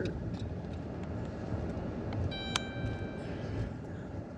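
Steady low rumble of a minivan driving, heard from inside the cabin, with a short electronic beep a little past halfway.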